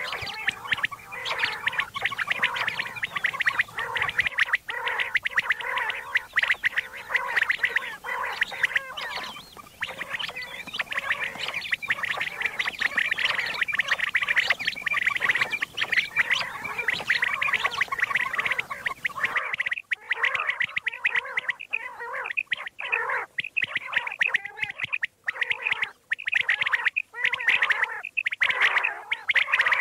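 Common quails calling without pause, a dense chorus of rapid, rattling calls. About two-thirds of the way through the background hiss drops away suddenly, as at a splice in the recording, and the calls go on.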